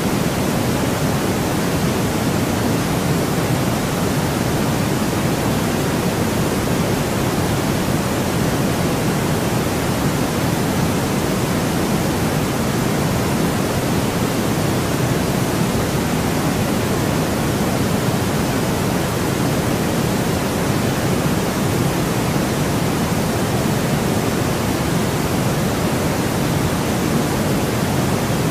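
Steady, unchanging synthetic white noise: an even hiss with a little more weight in the low-mid range, with no events or changes.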